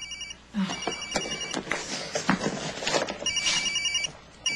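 A phone ringing with an electronic trilling ring in short repeated bursts, with rustling of movement between the rings.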